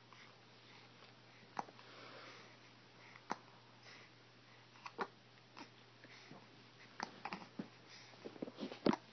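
Hiccups: short, sharp catches coming evenly about every second and a half, then a quicker cluster of several small sounds near the end, the loudest just before it ends.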